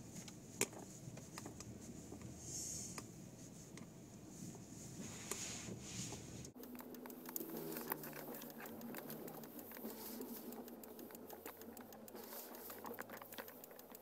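Sleet ticking and pattering on the car over a low hum. About six and a half seconds in, the hum drops away and the ticking becomes dense and fast.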